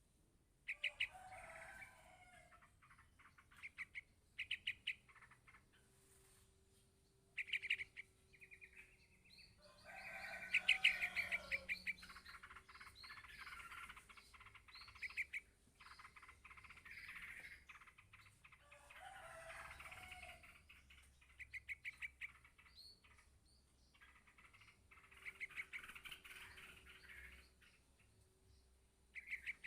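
Yellow-vented bulbul chick calling for its parent: short runs of quick, high chirps, repeated every couple of seconds.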